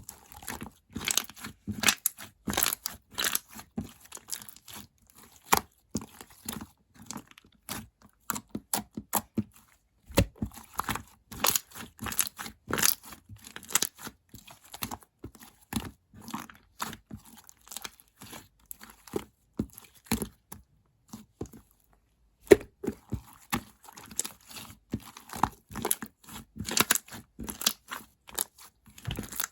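Purple slime being worked by hand: a dense, irregular run of sticky clicks and crackles. There is a short pause about three-quarters of the way through.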